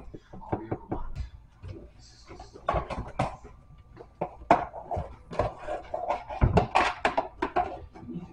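A spoon scraping and knocking against single-serve microwave cups of mac and cheese and plastic divided plates as the food is served out, in a string of short clicks and taps. Voices talk in the background.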